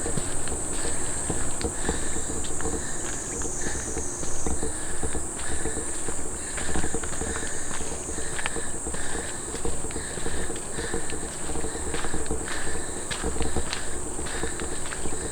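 A steady high-pitched insect chorus from the trailside trees, with the walker's footsteps on a dirt hill path crunching along underneath.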